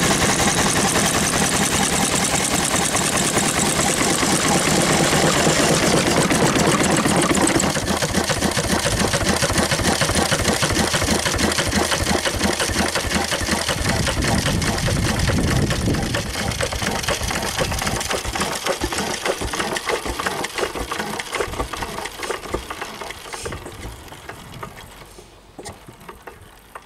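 Bamford SD3 6 HP single-cylinder stationary diesel engine running with a rapid, even beat, growing quieter over the last ten seconds or so.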